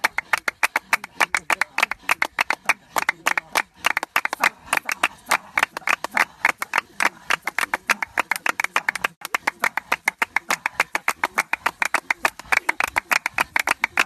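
A group of San women clapping with cupped hands, a fast, steady run of hollow, reverberating pops, several a second, keeping time for a dance.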